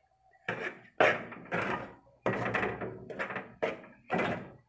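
Slotted metal spoon scraping and knocking against a metal kadhai while stirring a stiff semolina and flour mixture, in about five separate strokes, each starting sharply and fading.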